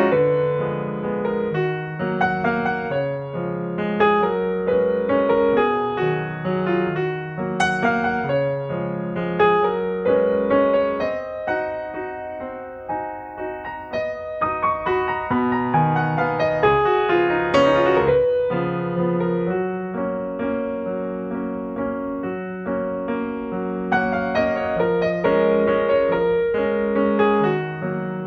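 Background piano music: a flowing melody over a repeating pattern of low notes.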